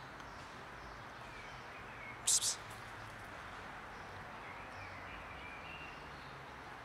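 Steady outdoor background hiss, with a short high-pitched double chirp from a small animal about two seconds in.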